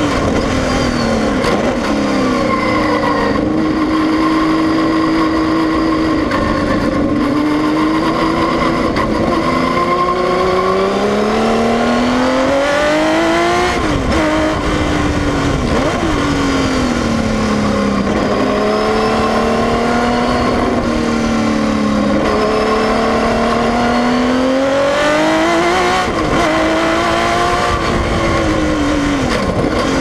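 On board a 1972 Tecno PA123/3 Formula 1 car: its 3-litre Pederzani 180° V12 (flat-12) engine running hard, rising and falling in pitch as the car accelerates and slows. It climbs to a peak and drops sharply about halfway through, and again a few seconds before the end.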